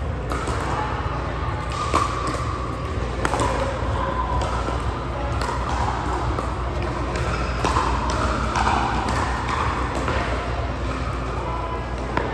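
Background murmur of voices with a few sharp knocks, the loudest about two seconds in.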